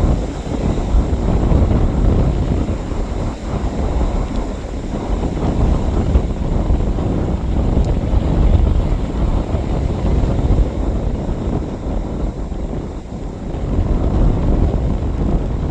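Strong wind buffeting the microphone, a loud low rumble that swells and dips with the gusts.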